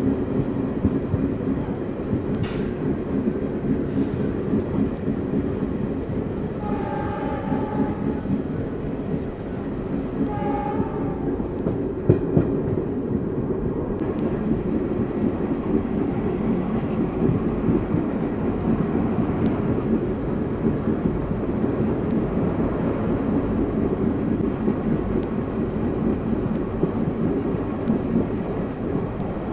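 Twin ALCO WDM-3D diesel locomotives hauling a passenger train, heard from a coach behind: a steady low diesel rumble with wheels on the rails. Two short horn blasts sound about seven and ten seconds in.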